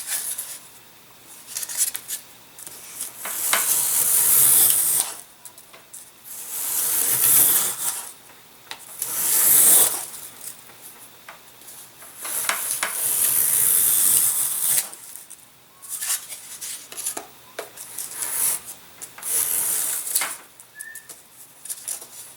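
Razor plane shaving the model wing to shape an airfoil wedge, in about eight long scraping strokes with short pauses between.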